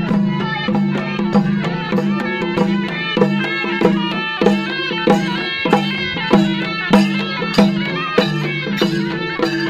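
Live traditional folk music: a hand-held frame drum beaten in a steady rhythm, about three strokes every two seconds, under a melody played over a steady held drone.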